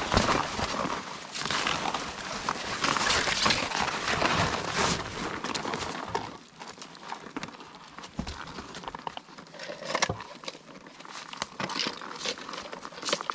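Rustling and crackling of a cloth sack being handled over dry leaf litter. About six seconds in it gives way to quieter, scattered knocks and scrapes as PVC-pipe crab traps are handled.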